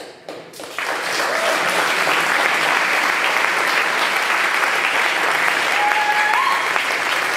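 Audience applauding and cheering, coming in suddenly about a second in and then holding steady.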